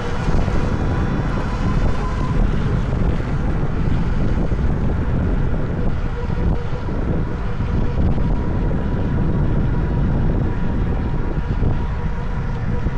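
Wind rushing over a bike-mounted 360 camera's microphone while riding an electric bike, with a faint steady whine underneath.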